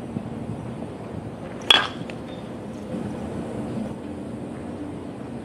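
A baseball bat strikes a pitched ball once, about 1.7 seconds in: a sharp ping with a brief ring.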